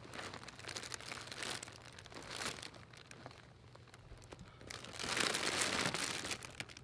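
Cat rustling and crinkling the fabric of a play tunnel as she moves and plays with a ball inside it, in irregular spells, with the longest and loudest stretch about five seconds in.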